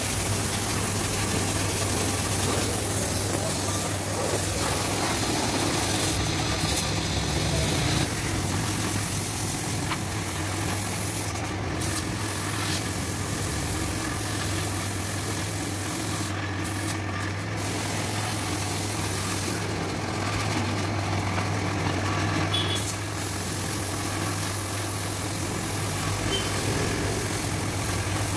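Compressed-air paint spray gun hissing steadily as green paint is sprayed onto tractor parts, the hiss breaking off briefly a few times as the trigger is let go, over a steady low machine hum.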